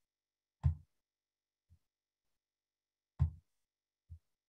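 Short dull clicks, two distinct ones about two and a half seconds apart with two fainter ones between, typical of a computer mouse being clicked near the microphone.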